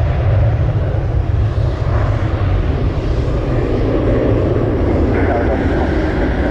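Jet airliner engines running with a loud, steady rumble.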